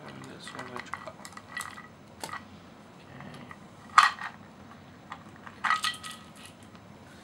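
Metal clinking and rattling of a Triumph Daytona 675's cam chain being worked loose in the engine's chain well, its links knocking against the cases. It comes as a run of light clinks, one sharp clink about four seconds in, and a short rattling flurry near the end.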